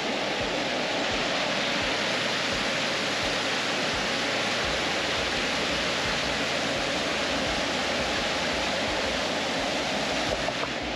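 Muddy floodwater from a rain-swollen river rushing and churning in white-water waves across a sand beach, a steady unbroken rush of water.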